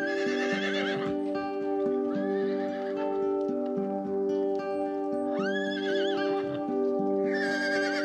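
A horse whinnying four times, each call rising and then quavering, the last and loudest near the end. Background music with long held notes plays underneath.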